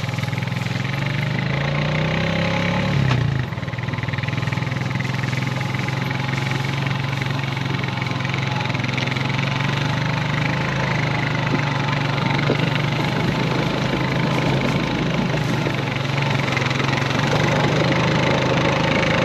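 Small vehicle engine running steadily, its pitch rising and then falling once a couple of seconds in.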